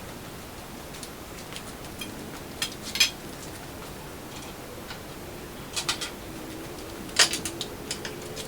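Scattered sharp metallic clinks and clicks at irregular intervals, the loudest about seven seconds in, as of small metal parts and tools being handled. A faint steady tone runs under the later clinks.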